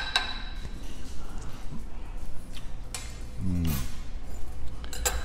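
Ice clinking against a glass mixing glass as a metal bar spoon stirs a cocktail, with a couple of sharp, ringing clinks at the start and a few lighter taps after.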